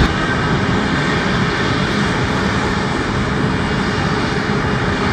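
Pratt & Whitney PW1000G-family geared turbofan engines of taxiing airliners running: a steady roar with a thin, steady high whine through it.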